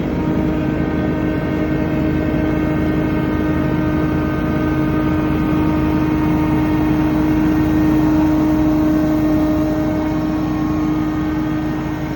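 Scag Windstorm 37 hp stand-on leaf blower running steadily at speed: engine and blower fan make a continuous drone with a strong steady hum.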